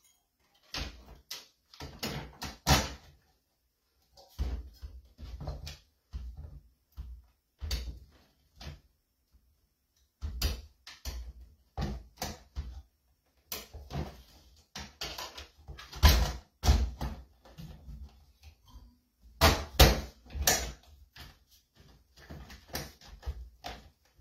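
Irregular knocks, clunks and rattles of a three-bulb vanity light fixture being handled and fitted against the wall, in clusters with short silent gaps. The loudest knocks come about two-thirds of the way through.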